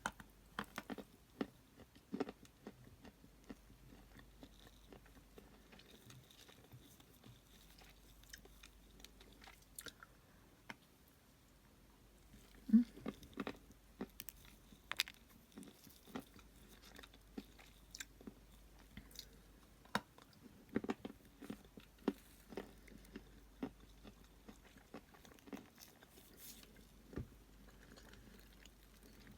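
A person biting and chewing a moistened piece of Cambrian clay: quiet, firm bites and crunchy chewing with scattered sharp crackles, the loudest a little before and after the middle. The clay grates faintly on the teeth, which she puts down to sand left from the previous clay.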